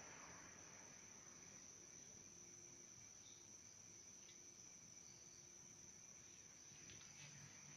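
Near silence: faint room tone with a steady high-pitched whine.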